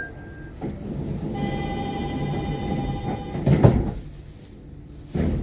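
A door warning tone sounds steadily for about two seconds, then the sliding doors of a Nippori-Toneri Liner car shut with a loud knock. A second loud knock comes near the end.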